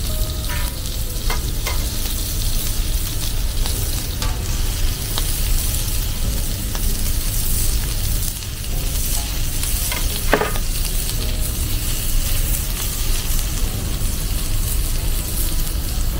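Food sizzling steadily on a hot ribbed griddle plate, with a few sharp clinks of steel tongs against the plate as the pieces are turned and pressed.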